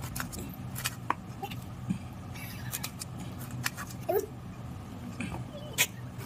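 A knife cutting raw jackfruit on a stainless steel plate: irregular sharp clicks and scrapes as the blade meets the metal, over a steady low hum. A brief squeak sounds about four seconds in.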